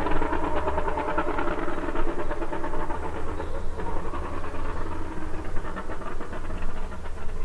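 Apollo IE hypercar's V12 engine running, its exhaust note a dense, rapid rattle of pulses that thins out about halfway through.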